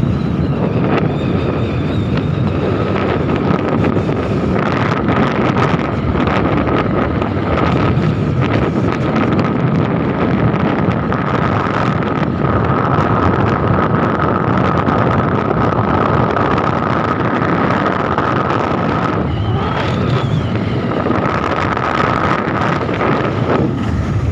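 Wind buffeting the microphone on a moving motorcycle at road speed, over the steady noise of the bike's engine and tyres, with a thin high whine held through most of it.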